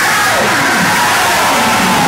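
Many voices shouting and crying out at once, loud and overlapping, with drawn-out rising and falling cries.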